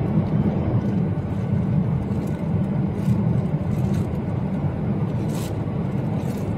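Steady low rumble of cabin noise in a Boeing 737-800 taxiing after landing, its engines running, with a few faint clicks over it.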